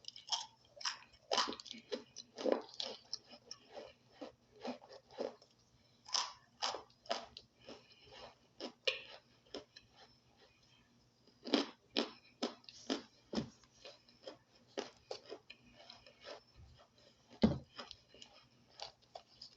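A person biting and chewing chunks of toasted cornstarch: a run of irregular crunches, a few a second, with short pauses between bites.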